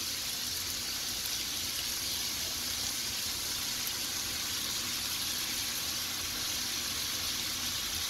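Raw chicken strips sizzling in hot butter and oil in a pan: a steady frying hiss.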